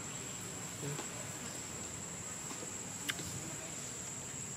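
Steady high-pitched insect drone from the surrounding forest, with one sharp click about three seconds in.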